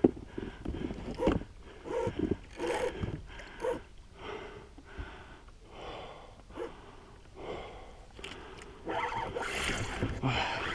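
A man breathing hard in short, irregular gasps from the strain of fighting a big hooked roosterfish.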